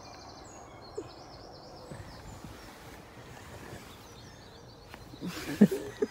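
Quiet outdoor background with a small bird's faint, high twittering in the first second or so. About five seconds in there is a burst of rustling with a few sharp knocks as the camera is handled and moved.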